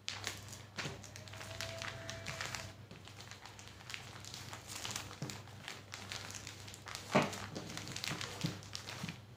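Rustling and light crinkling of a waterproof, plastic-lined cloth diaper being handled and folded by hand, with one sharper tap about seven seconds in.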